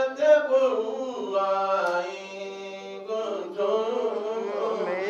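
A man chanting in a drawn-out, melodic voice, holding long notes that bend slowly in pitch, in the style of a Qur'anic recitation.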